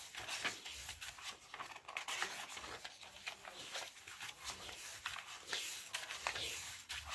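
Pages of a paperback book being turned by hand: irregular paper rustling and flicking as sheets are lifted and let fall.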